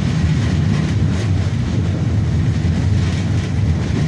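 Steady low rumble of a KTM tram running along its rails, heard from inside the car.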